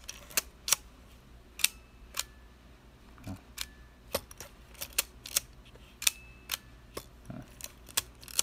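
Canon Demi EE17 half-frame film camera's shutter and film-advance mechanism being worked over and over: a steady string of sharp mechanical clicks, roughly two a second, some with a brief metallic ring, and a couple of softer handling knocks.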